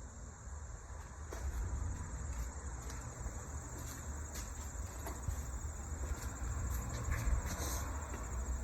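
Insects chirping steadily, a continuous high-pitched trill, over a low rumble with a few faint knocks.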